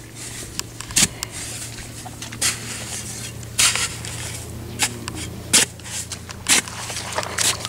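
A long-handled digging tool chopping into hard, dry clay soil: about seven sharp crunching strikes, roughly one a second at an uneven pace, with soil scraping and crumbling between them.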